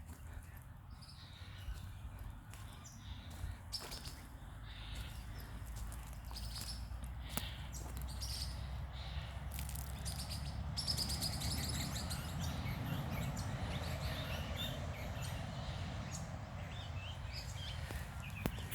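Swift parrots calling: scattered short, high chirps, with a quick run of repeated notes a little past halfway, over a steady low rumble.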